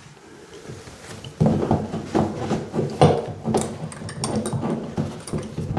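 Irregular scraping, rubbing and light clicking as a metal towel-rail bracket is handled on its wall mount and its locking screw is wound in with an Allen key. It starts about a second and a half in, after a quiet start.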